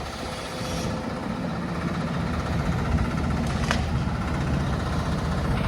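Diesel engine of a demolition machine running steadily, with one short sharp clink about three and a half seconds in.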